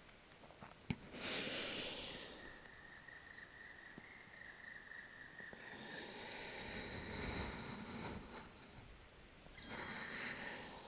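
A person's slow, deep breathing close to the microphone: three long breaths with pauses between them, paced with cat-cow yoga movements.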